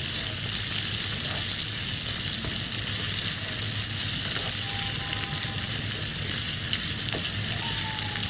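Sliced onions sizzling steadily in hot oil in a black wok, frying until soft but not browned. A spoon stirring them gives a few light clicks against the pan.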